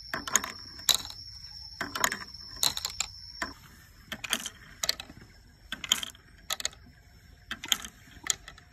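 Irregular sharp ticks, about one or two a second: water drops falling onto the pieces of a bamboo water-drop sculpture.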